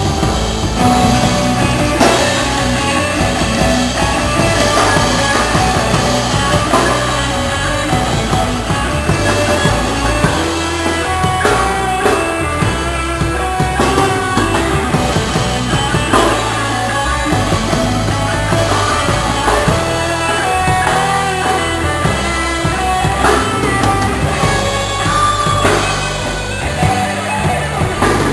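A live band rehearsing a song: continuous full-band music with a steady beat and a moving bass line.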